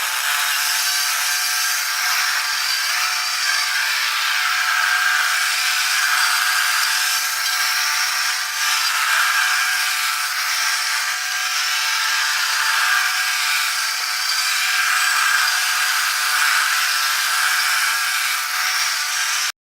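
Petrol-engined cylinder (reel) lawnmower running steadily as it cuts grass, set to its lowest height of about 4 mm. The sound cuts off abruptly near the end.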